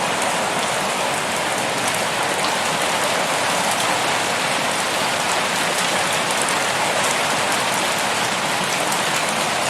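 Steady rain falling, a dense even patter with fine drop ticks scattered through it.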